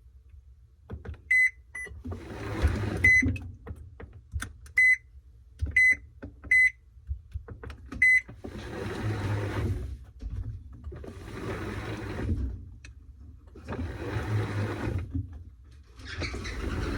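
Washing machine control panel beeping at each button press, seven short beeps. From about halfway in, the machine starts and the drum turns in swishing bursts of about two seconds with short pauses between them.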